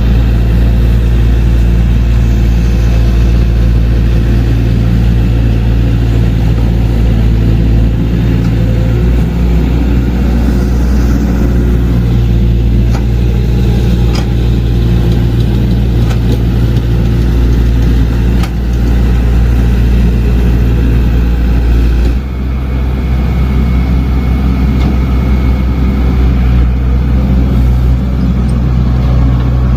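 Diesel engine of heavy earthmoving machinery running steadily at work. Its note changes about nine seconds in and again abruptly about twenty-two seconds in, with a few sharp clanks in between.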